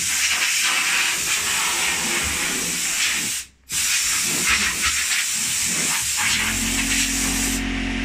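Electric hand sander running on a laminated pine countertop panel, a steady hissing grind with a brief break about halfway through.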